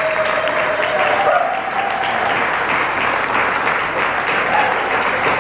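Audience applauding steadily after a dance performance, with a held note fading out about a second and a half in.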